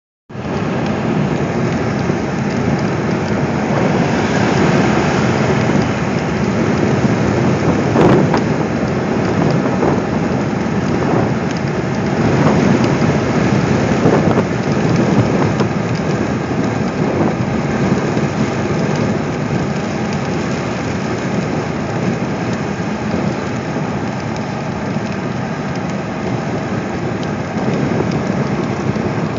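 Rain hitting a Jeep's windshield and roof, with steady road and tyre noise, heard from inside the cabin on the highway. A single sharp click comes about eight seconds in.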